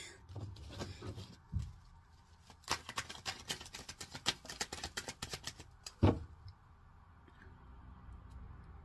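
Tarot cards being shuffled by hand: a quick run of card flicks lasting about three seconds, then a single thump about six seconds in.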